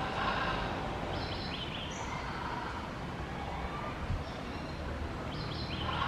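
A bird calling: a quick phrase of short high notes, given twice about four seconds apart, over a steady low rumble.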